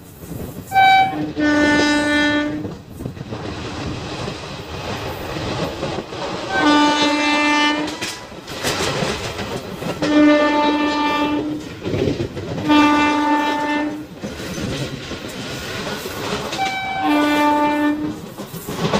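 A train's horn sounds five long blasts a few seconds apart, each at a steady pitch, over the steady rush of wind and wheels on the rails of an express train running at speed.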